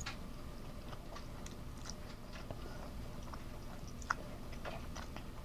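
Chewing a mouthful of noodles, with soft scattered wet mouth clicks.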